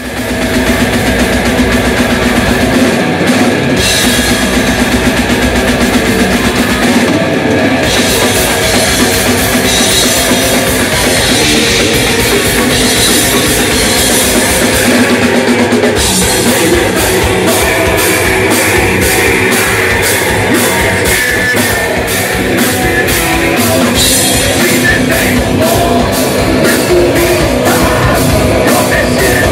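Live heavy rock band playing loud: electric guitar over a drum kit. About halfway through, the drumming settles into a fast, steady beat.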